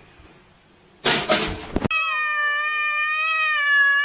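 A short loud noisy burst about a second in, then a cat's long drawn-out yowling meow starting about two seconds in. The yowl is held on one breath, its pitch sagging a little and then slowly rising.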